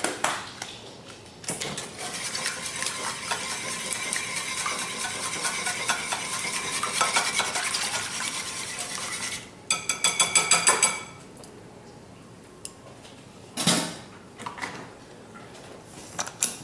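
Wire whisk beating eggs and milk in a ceramic bowl: a fast, continuous clatter of metal against the bowl for about eight seconds. It is followed by a brief run of louder, rapid clinks, then a single knock and a few light clicks near the end.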